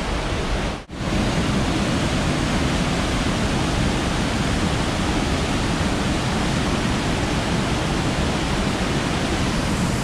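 Rushing mountain creek, white water tumbling over rocks and fallen logs in a steady rush, with a brief dropout about a second in where the recording cuts.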